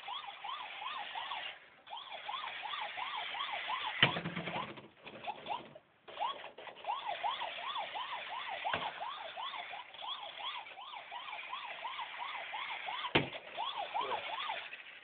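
Toy remote-control police car's electronic siren warbling quickly up and down, a few cycles a second. It breaks off briefly about 2 s in and again from about 4 to 6 s. Sharp knocks sound about 4 s and 13 s in.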